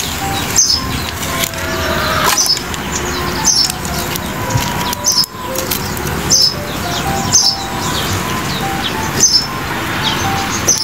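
Wood fire of sticks crackling and popping, with a bird chirping repeatedly in the background.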